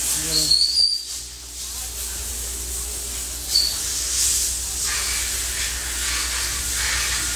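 Machine-shop background noise: a steady low hum under a constant hiss, with two short high squeaks, one about half a second in and another about three and a half seconds in.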